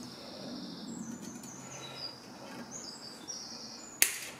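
Faint bird chirping in the background, then, about four seconds in, one sharp snap of side cutters nipping a soft iron rivet off to length.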